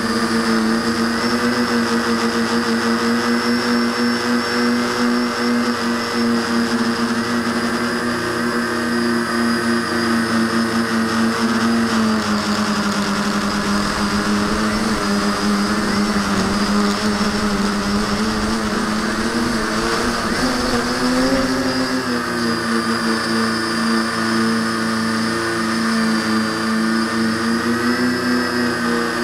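V-tail quadcopter's electric motors and propellers buzzing steadily, heard from a camera mounted on the frame. The pitch drops about twelve seconds in and rises again a little after twenty seconds.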